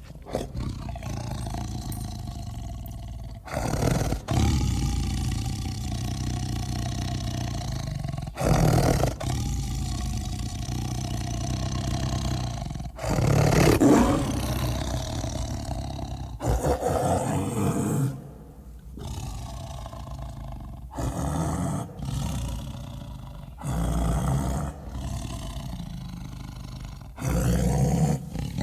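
Big-cat roars and growls, lion and jaguar calls edited together as the voice of a liguar, a lion–jaguar hybrid. A string of separate calls follows one after another, with abrupt cuts every few seconds.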